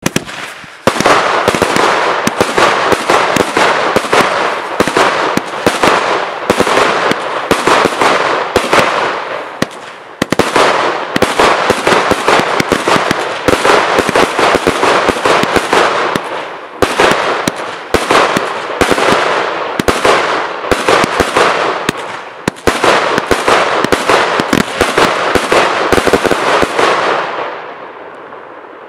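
Klasek Dum Bum Mini, a 49-shot 25 mm bore firework barrage, firing very loud shots in rapid succession, with a few short lulls along the way. The bangs stop a little before the end and die away into a fading rumble.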